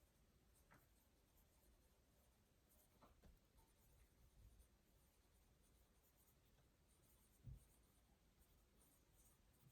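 Near silence in a small room, with faint scratches of writing on paper and a soft low thump about three-quarters of the way through.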